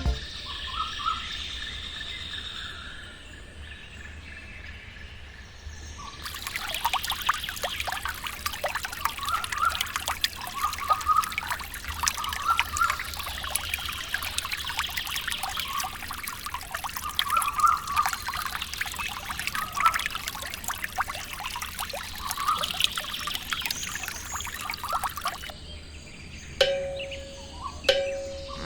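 Water pouring and trickling steadily, starting about six seconds in and stopping shortly before the end, with birds chirping throughout.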